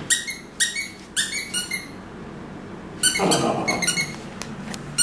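Squeaky raccoon dog toy being squeezed over and over in short high-pitched squeaks: a quick run of about five, a pause of about a second, then another run.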